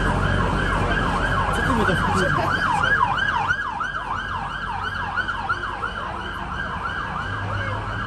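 A siren in fast yelp mode, its pitch sweeping up and down about three times a second, loudest about three seconds in and then fading a little, over busy street hubbub.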